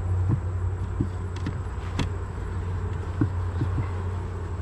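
Honeybee colony humming steadily in an open hive, with several light wooden knocks as a gloved hand handles the frames' top bars.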